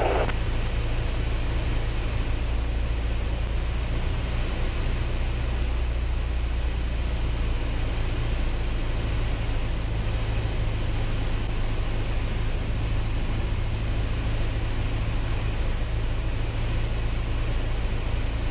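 Steady cockpit noise of a Piper Cherokee 180 in flight: its four-cylinder Lycoming engine and propeller running at an even low hum, with a haze of wind noise over it.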